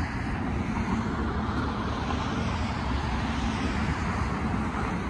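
Steady low rumble of distant engines, with a broad hiss over it.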